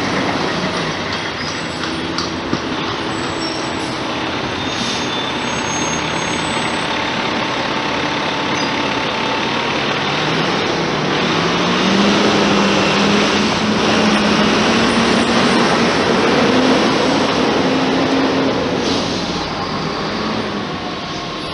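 Road traffic passing close by: cars and trucks driving past with a steady rush of engine and tyre noise. Around the middle, one vehicle's engine note rises as it speeds up, and the traffic is loudest a little after that.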